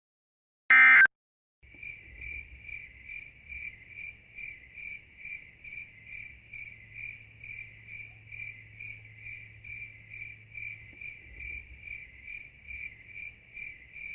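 The last of three short Emergency Alert System end-of-message data bursts ends about a second in. Then crickets begin chirping, an even pulsing at about three chirps a second, over a faint low hum.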